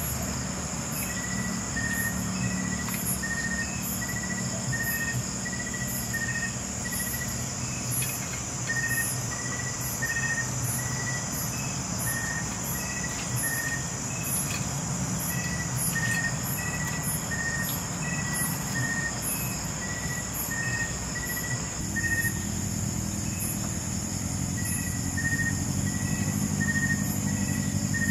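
Outdoor evening insect chorus: a steady high buzzing of crickets with a short chirp repeating about twice a second. Underneath, a low vehicle engine rumble grows louder in the last few seconds.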